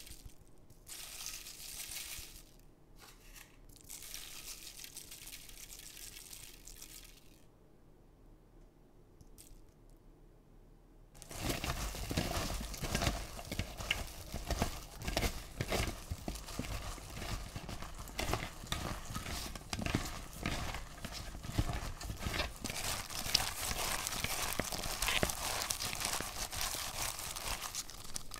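Salted, cut napa cabbage leaves being rubbed and squeezed by hand in a glass bowl: loud, continuous crunching and crinkling that starts suddenly about eleven seconds in. Before that there is only faint, patchy rustling.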